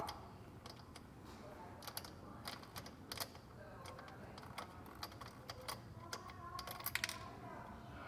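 Faint, scattered light metallic clicks and ticks as the nut is turned off a car battery's positive terminal post by hand.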